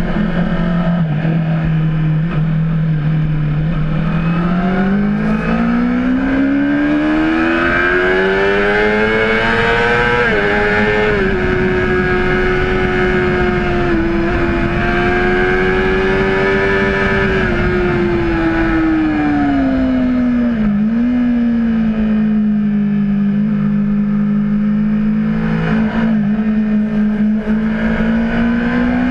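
Honda CBR600RR's inline-four engine heard onboard on a wet track: the revs climb for several seconds under acceleration, hold high with a brief dip as at a gear change, then fall away under braking with a short blip about twenty seconds in and settle at lower revs. Wind noise runs underneath.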